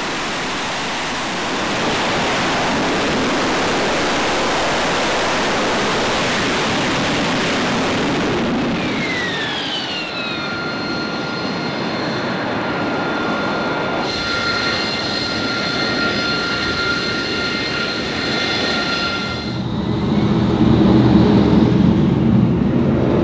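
AV-8B Harrier II's Rolls-Royce Pegasus turbofan roaring through a vertical landing. About nine seconds in the roar eases, and falling whistles settle into a steady high turbine whine. Near the end a deeper rumble takes over.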